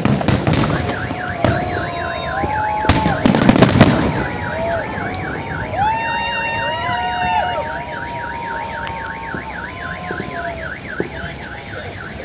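Fireworks bangs and crackles in the first few seconds, then car alarms going off: one warbling up and down about three or four times a second, with other alarm tones gliding beneath it.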